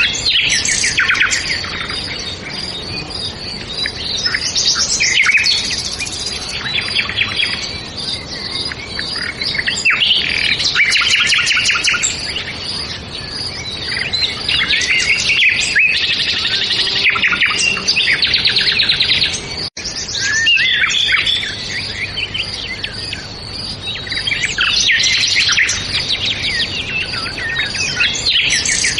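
Several songbirds singing at once, with overlapping fast trills and chirps. The sound breaks off for an instant about two-thirds of the way through.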